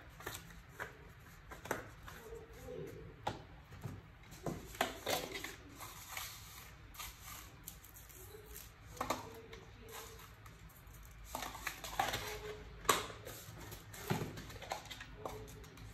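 Irregular light clicks, taps and short rustles of seasoning containers being handled and shaken, with powder sprinkled onto raw pork pieces in a plastic bowl.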